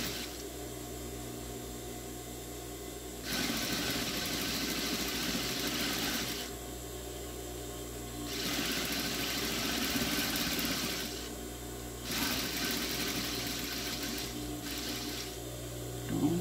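Sewing machine stitching fabric onto a zipper in three runs of about three seconds each, starting roughly three, eight and twelve seconds in, with short pauses between. A steady low hum continues underneath.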